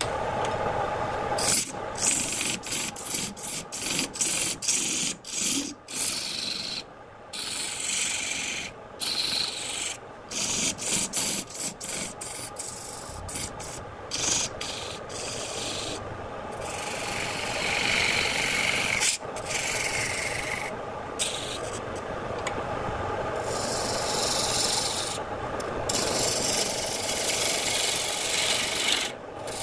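Turning tool cutting a spinning redwood vase blank on a wood lathe, a hissing, scraping cut as shavings peel off. The cuts come in many short passes with brief gaps in the first half, then in longer unbroken strokes from about halfway through.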